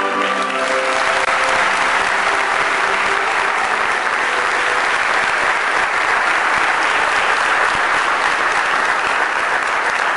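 Audience applauding steadily, the dense clapping of a hall full of people, while a piece of music fades out in the first second or so.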